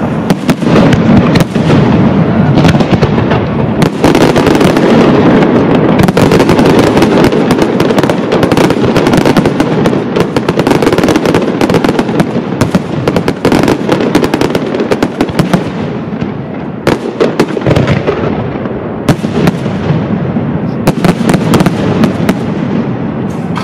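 Pirotecnia Caballer FX aerial fireworks: shells and comets bursting in a dense, almost unbroken barrage of bangs and crackle, thinning a little in the last several seconds.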